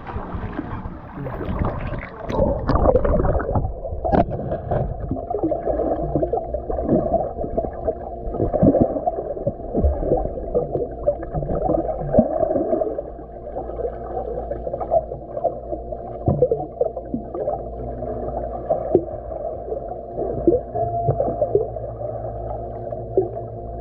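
Pool water splashing at the surface, turning muffled about four seconds in as the camera goes under. After that it is the muffled gurgle and bubbling of swimming-pool water heard underwater, with frequent sudden thumps and splashes from swimmers diving in and kicking.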